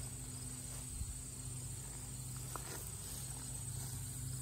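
Steady insect chorus: an even high-pitched trill over a low hum, with a faint click a little past halfway.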